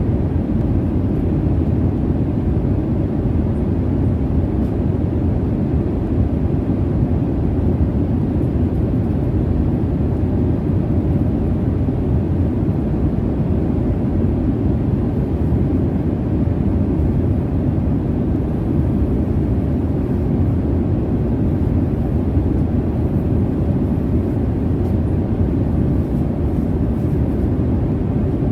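Jet airliner cabin noise in cruise: a steady low rumble and rush of engine and airflow, unchanging, with a faint steady hum.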